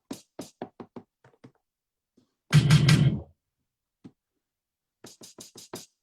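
Two quick runs of sharp taps or knocks, about six a second, with a short, louder low-pitched burst between them.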